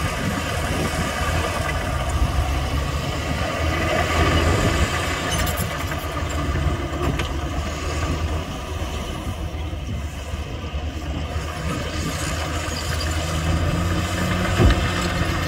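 Heavy earthmoving machinery's diesel engine running steadily, with a single sharp knock near the end.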